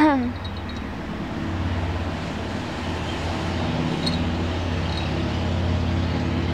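Low, steady rumble of road traffic, a little louder from about a second and a half in.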